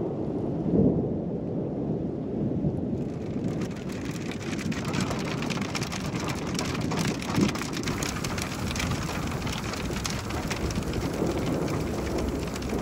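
Thunderstorm: a low rumble of thunder, then rain coming down hard from about three seconds in, with one more short low thump of thunder in the middle.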